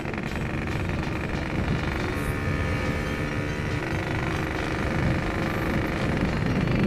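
Yamaha RX-King's two-stroke single-cylinder engine running steadily as the motorcycle cruises along the road, getting a little louder in the second half.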